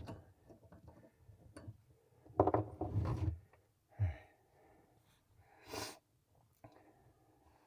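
Light knocks and handling noise from working the nut on a compression shut-off valve with a wrench, with a few short noisy breaths, the loudest about two and a half seconds in and another near six seconds.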